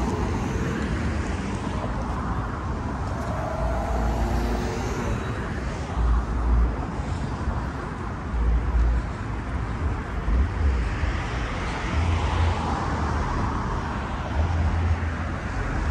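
Downtown street traffic: a steady hum of cars on a wide multi-lane road, with a vehicle passing more loudly a little past the middle. Low rumbles hit the microphone now and then.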